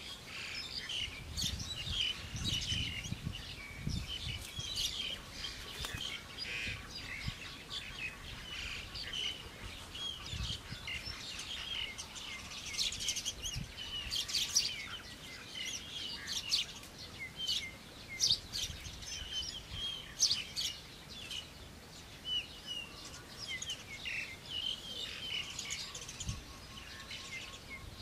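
Birds chirping: many short, high chirps and calls keep coming throughout. A few low thumps in the first few seconds, and again about ten seconds in.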